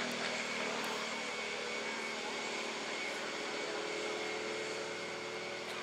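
Airbus A400M Atlas's four turboprop engines running at low power on the ground: a steady whine over a wide rushing noise that eases very slightly.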